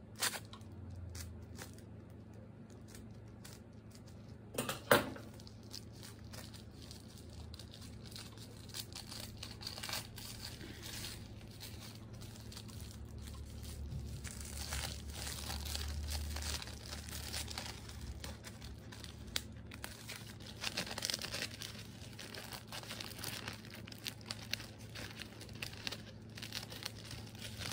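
Paper wrapping crinkling and tearing as a candle is unwrapped by hand, with irregular rustling that grows busier midway. There is one sharp knock about five seconds in.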